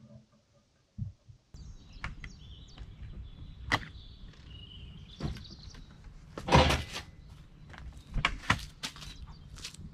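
Scattered knocks and clicks of things being handled, with one louder clatter about halfway through, over a steady low hum; faint high chirps sound early on.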